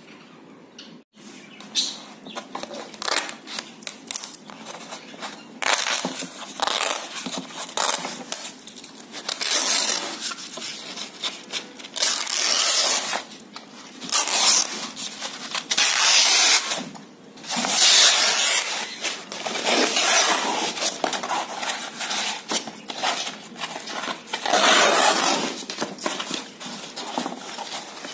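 Old painted canvas being torn by hand, ripping in a long series of tears, each a second or two long, with short pauses between.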